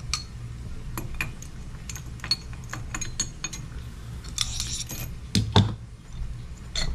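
Light metallic clinks and rattles of a motorcycle engine's timing chain and top-end parts being handled during teardown, with a brief rattle a little past four seconds and a louder knock about five and a half seconds in.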